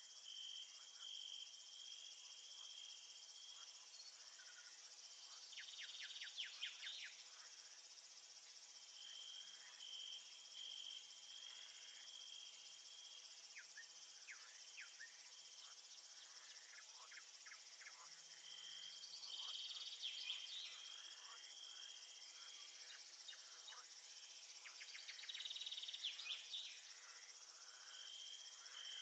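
Crickets and other insects chirping in a steady high chorus. Spells of pulsed trilling come and go, and short clusters of quick, louder chirps break in about a quarter of the way through, at about two-thirds, and near the end.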